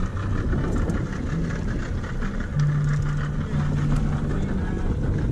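85 hp outboard motor idling, a steady low drone, with a steadier low hum for a couple of seconds in the middle.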